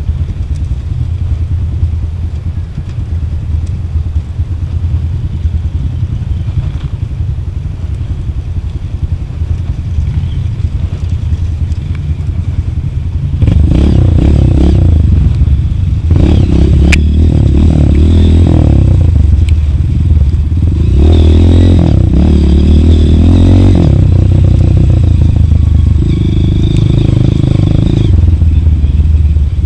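Trail motorcycle engine running on a rough downhill trail, with rattling from the bike. It gets clearly louder about halfway through and then rises and falls.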